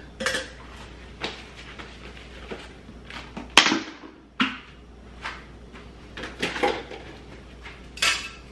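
Scattered clicks and knocks of plastic and metal kitchen parts being handled and set down on a stone countertop, the sharpest knock about three and a half seconds in.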